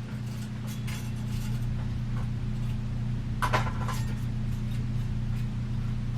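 Light clinks and taps of hard fan parts being handled during ceiling fan assembly, with one louder clink about three and a half seconds in, over a steady low hum.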